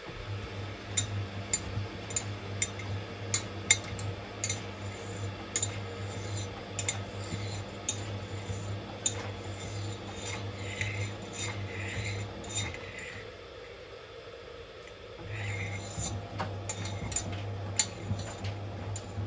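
Miele WS 5405 front-loading washing machine tumbling its drum with a steady motor hum, while hard parts of the load clink and click against the drum. About two-thirds of the way through the motor stops for a couple of seconds and then starts again, as the drum changes direction in the wash rhythm.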